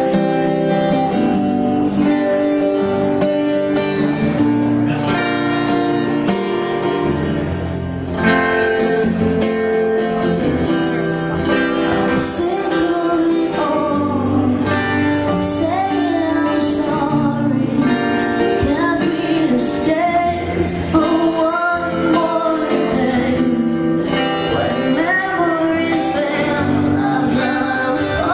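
Live acoustic guitar strummed in a steady chord pattern, with a woman's singing voice coming in about twelve seconds in.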